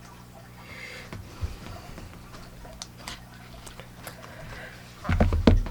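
Hands handling a new smartphone, making faint taps and light rustling, with a louder cluster of bumps and clicks about five seconds in.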